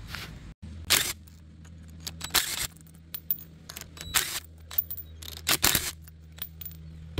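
Cordless DeWalt impact driver with a socket run in about four short bursts, loosening the nuts on the studs of a submersible well pump motor's end. Sharp metal clicks of the socket and tools come between the bursts.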